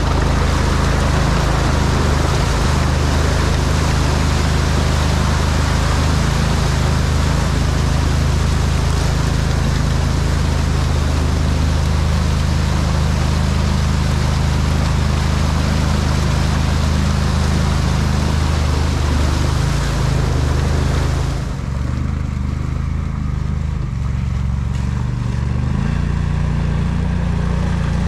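Argo amphibious ATV's engine running steadily while it drives along a muddy trail, a low drone under a loud rushing noise. About 21 seconds in, the rushing noise drops away and the engine note rises and falls.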